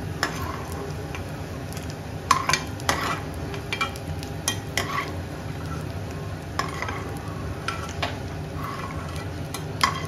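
Metal spoon scraping a non-stick pan and scooping roasted peanuts into a bowl: irregular scrapes and clinks, about ten in all, over a light sizzle of hot oil.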